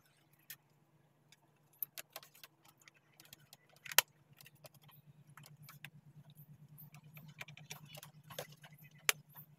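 Scattered small clicks and taps from handling multimeter test probes, wires and the speaker's plastic casing, over a faint steady low hum. The sharpest click comes about four seconds in.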